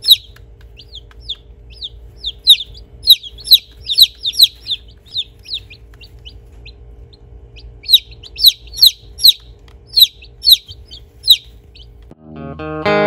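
American Bresse chicks peeping: many short, high peeps that slide down in pitch, in two flurries with a pause between, over a steady low hum. Guitar music starts about a second before the end.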